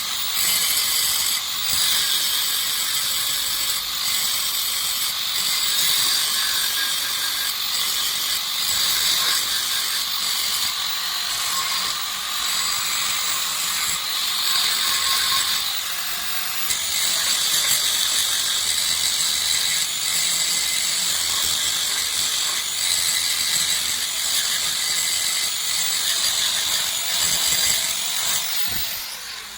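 Steady, harsh, high-pitched mechanical noise of metalworking on a truck's rear leaf spring.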